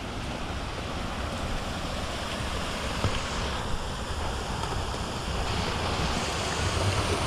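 Water pouring over a salmon hatchery's concrete weir into a creek: a steady rushing noise that grows louder, with wind buffeting the microphone.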